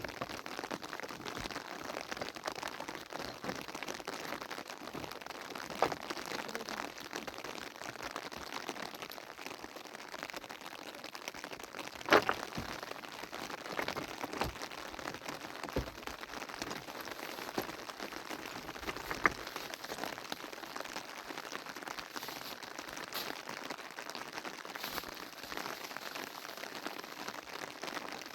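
Steady rain pattering, broken by a few sharp knocks, the loudest about twelve seconds in.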